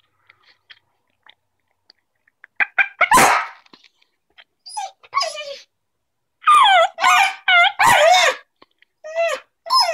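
Dog howling and yipping in excitement, a string of loud calls that swoop down in pitch, several a second, mostly in the second half; one sharp sound comes about three seconds in. The dog is reacting to a turkey call.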